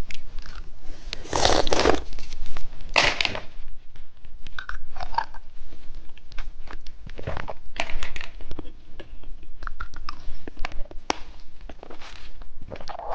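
Crinkling and tearing of an ice cream wrapper, then crisp crunchy bites and chewing of the ice cream, heard close up. Two louder tearing rasps come early, followed by many short crackles and crunches.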